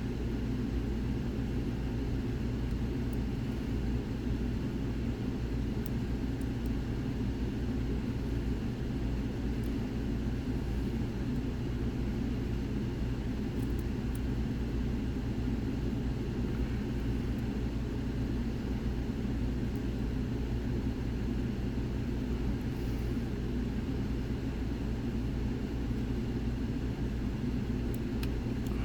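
Steady low background rumble throughout, with a few faint scattered clicks.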